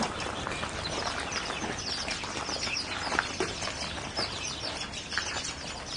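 Small birds chirping: many short, high chirps over a steady outdoor background hiss, with one sharp click about three seconds in.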